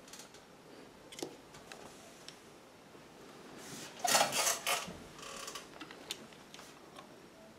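Metal parts of an industrial sewing machine being handled by hand: a few light clicks, then a brief burst of scraping and rattling about four seconds in.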